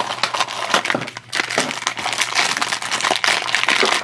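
Blind-box packaging being handled and opened by hand: a cardboard box, paper insert and the crinkly blue foil bag inside, giving dense, irregular crinkling and crackling with a short lull about a second in.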